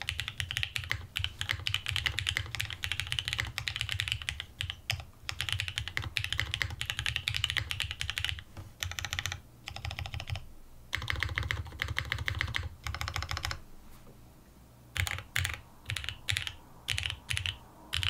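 Typing on a Bauer 2 65% custom mechanical keyboard fitted with lubed and filmed Gateron Box Ink V2 Black linear switches on a polycarbonate plate, with GMK keycaps: fast runs of keystrokes broken by short pauses, then a handful of separate single key presses near the end.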